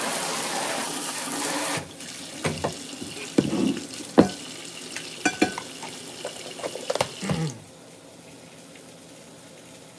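Kitchen tap running into the sink as a frying pan is rinsed, shut off about two seconds in. Then come a few seconds of sharp knocks and clanks of the pan being handled and set down, before it goes quiet.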